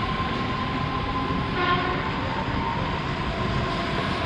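Electric commuter train running slowly past a platform: a steady rolling noise with a constant whine from the traction equipment. A short horn toot comes about one and a half seconds in.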